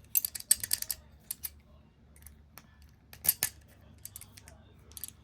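Sharp metallic clicks and snicks from a rebuilt Master Lock padlock being worked by hand: a quick cluster in the first second, then scattered single clicks, the loudest about three seconds in.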